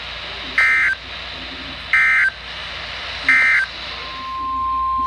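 Three short, loud bursts of EAS/SAME digital data tones, about 1.3 seconds apart: the end-of-message code that closes the warning. Near the end a steady single-pitch alert tone starts, over the hiss of the radio feed.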